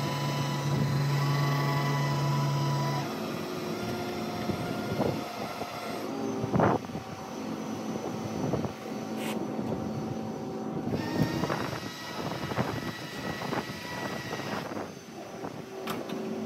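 Flatbed tow truck's engine and winch running steadily while a car is drawn up the tilted deck, with several sharp metallic knocks and clanks, the loudest about seven seconds in.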